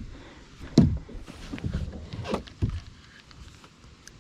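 A few knocks and thumps against a kayak, the loudest about a second in and two more a little past the middle.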